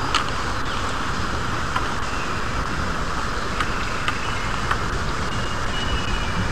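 Steady rushing of a flowing river mixed with wind buffeting the microphone, with a few faint clicks and short high chirps over it.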